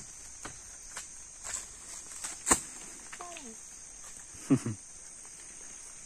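Steady high-pitched insect chorus, with scattered light knocks and footstep sounds. A loud sharp knock comes a little before halfway, and a short loud sound falling in pitch comes about three-quarters through.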